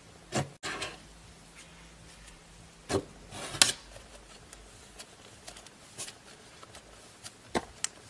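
Fluffy slime being poked and squeezed by hand, giving short sticky pops and crackles: a few separate pops with a crackly cluster around three seconds in.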